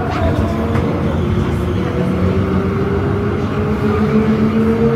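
Zürich Tram 2000 4/8 articulated tram running along the street, heard from inside the passenger cabin: a steady low rumble of wheels and running gear with a motor whine that rises slightly in pitch over the second half.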